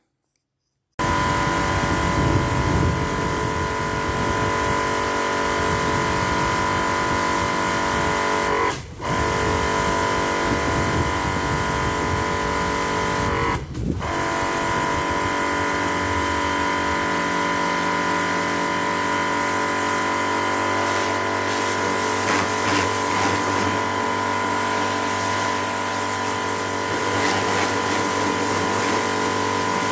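Kärcher K 5.20 M electric pressure washer running, its motor and piston pump giving a steady hum with a constant tone, while the lance sprays a jet of water. The sound starts suddenly about a second in and dips briefly twice, about 9 and 14 seconds in.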